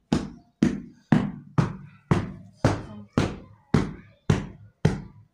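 Hand broom (jhaaru) sweeping a tiled floor in quick, even strokes, about two a second, each a short swish that starts sharply and fades.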